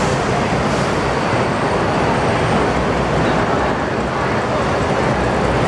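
Steady din of a crowded bus interchange: bus engines running with a low hum, under the murmur of a large crowd of waiting passengers.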